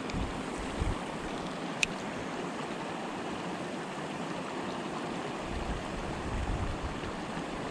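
Steady rush of a mountain creek flowing, with a single sharp click about two seconds in and a few low bumps near the end.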